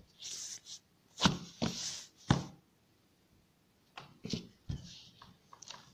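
Rolling pin rolling out a thin sheet of dough on a floured board: soft knocks and rolling strokes in two runs, with a pause of about a second and a half between them.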